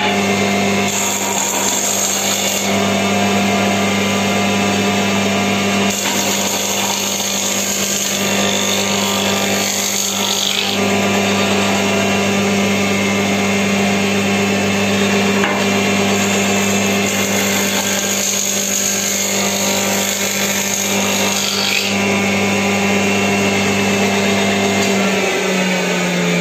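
Woodworking machine's surface planer (randa) running steadily with a motor hum, its four freshly sharpened blades set slightly lower, a wooden strip fed across the cutter block in a few louder passes. Near the end the motor is switched off and its pitch begins to fall as it winds down.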